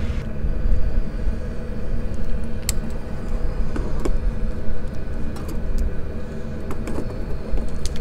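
Low, gusting rumble of wind on the microphone, with a handful of sharp metallic clicks and clinks scattered through the middle and end as a small screw-on canister camp stove and its aluminium kettle are handled.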